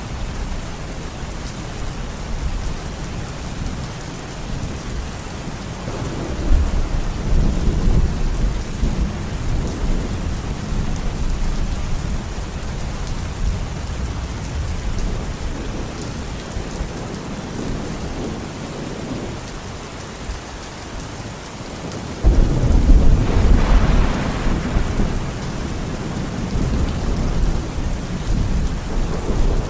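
Steady heavy rain falling, with thunder rumbling low twice: a rolling rumble about six seconds in and a sudden, louder crack and rumble about three quarters of the way through.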